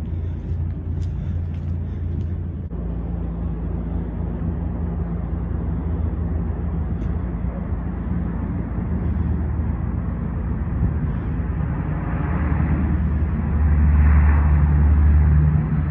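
Steady low drone of a four-engine turboprop military transport aircraft landing and rolling out on the runway, growing louder over the last few seconds.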